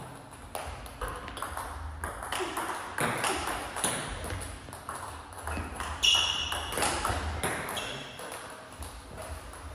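Table tennis ball striking the bats and the table: an irregular series of sharp clicks, with a brief high squeak about six seconds in.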